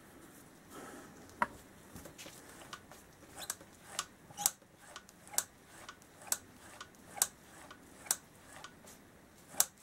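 Sharp metallic clicks, about one a second and about nine in all, from the carburettor throttle linkage as the newly fitted throttle cables are worked and the pulley snaps back to its stop.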